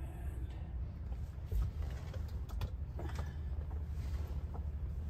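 Steady low rumble under scattered light clicks and knocks of things being handled in a truck cab, with a dull thump about a second and a half in.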